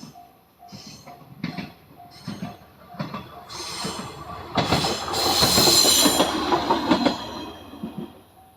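Level crossing alarm bell dinging about twice a second while a single-car diesel railcar runs over the crossing. The train's noise builds, is loudest about four to seven seconds in with wheel clatter and a high wheel squeal, then fades as the bell keeps ringing.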